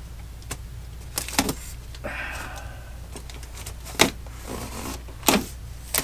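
Knife slitting the packing tape on a tall cardboard guitar shipping box: a scraping rasp of the blade along the tape about two seconds in and again near the end, among several sharp clicks and knocks against the cardboard.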